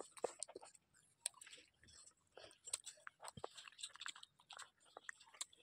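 A toddler chewing small fried fish close to the microphone: faint, irregular mouth clicks and wet smacks.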